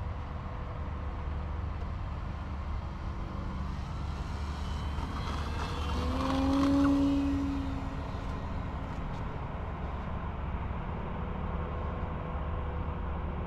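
Electric RC airplane's brushless motor and propeller buzzing in flight. The drone swells as the plane passes about halfway through, then fades, over a steady low rumble.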